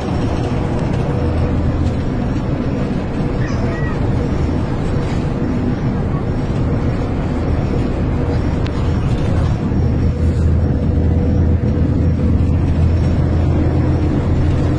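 Cabin noise inside a moving coach bus on a highway: the engine and tyres make a steady low drone.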